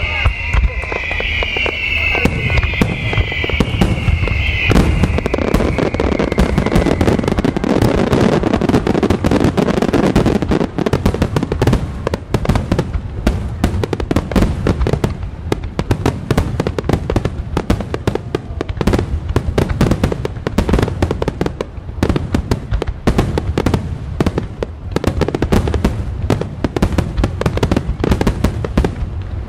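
Large starmine fireworks barrage: a continuous rapid volley of shell bursts, bangs and crackles following one another with almost no gap. Over the first several seconds, high whistling tones slide down in pitch above the bursts.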